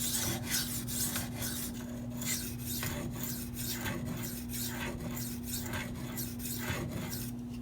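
Knife blade of Maxamet steel being stroked back and forth across a Venev diamond sharpening stone: a dry rasping scrape repeating about two to three strokes a second, over a steady low hum.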